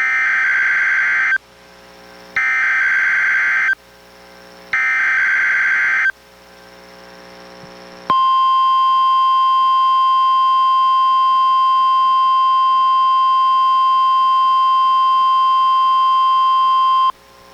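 NOAA Weather Radio Required Weekly Test: three short blasts of SAME digital header data tones, each about a second and a half, then the steady 1050 Hz warning alarm tone held for about nine seconds.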